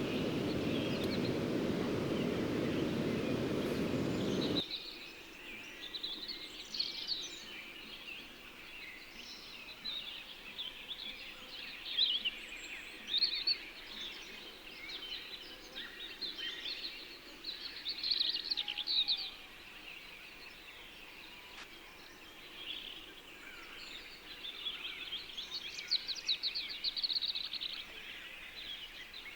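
Many wild birds chirping and trilling in a busy chorus, with a few quick rattling trills. A steady low rushing noise under the birds for the first few seconds cuts off abruptly.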